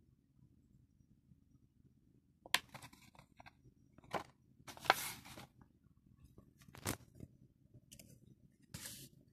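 Stiff plastic blister packs holding self-inking date stamps being handled and set down on a desk: a series of crinkling crackles and light plastic clacks, starting about two and a half seconds in.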